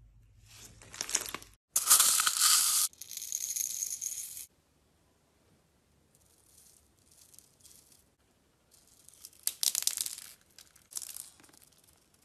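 Slime handling sounds: crackling as foam-bead slime is stretched, then a dense hiss about two to four seconds in. Later comes a clatter of many small clicks, the sound of small plastic beads rattling onto clear slime from a metal spoon, with a shorter patch of clicks after it.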